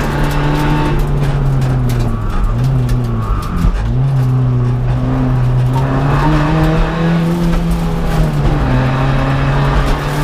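Seat Ibiza TDI rally car's turbodiesel engine driven hard, heard from inside the cabin. Its pitch dips sharply twice a few seconds in, then climbs steadily again and falls back once more near the end.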